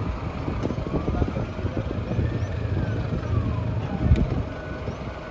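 Fire + Rescue NSW fire engine running with a steady low rumble, a faint tone sliding slowly up and back down over about three seconds, and a sharp thump about four seconds in.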